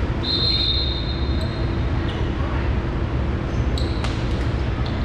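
A referee's whistle blows once, a steady shrill note a bit over a second long, over the hubbub of a gym. About four seconds in comes a short high squeak and a sharp smack, like a ball being struck.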